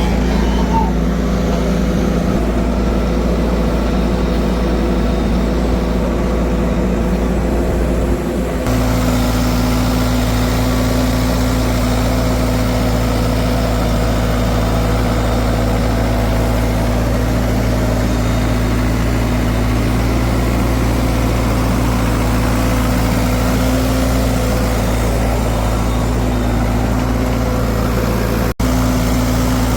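Heavy vehicle engine idling steadily. About eight and a half seconds in, the engine sound changes abruptly to a different steady idle, and it cuts out for an instant near the end.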